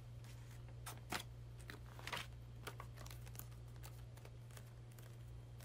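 Light crinkling and a few small, irregular clicks of something crinkly being handled by hand, over a steady low hum.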